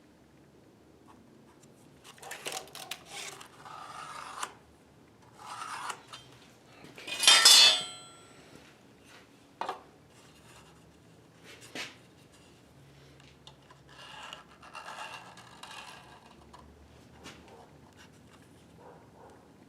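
Intermittent scraping and rubbing of materials and tools being handled at a workbench, with a louder metallic clatter about seven seconds in and a few sharp clicks after it.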